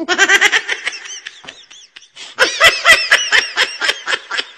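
A baby monkey being tickled, letting out rapid high-pitched laughing squeals in quick pulses. There are two bursts, one right at the start and a louder one from about two and a half seconds in.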